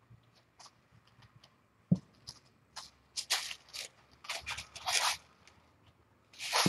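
Kitten digging and scratching in granular cat litter: a series of short scratchy rustles, busiest from about three to five seconds in and again near the end, with a single soft thump about two seconds in.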